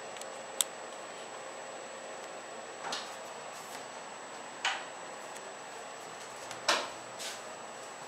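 Steady background hiss with a faint high whine, a sharp click about half a second in, and four short scuffs or knocks in the second half.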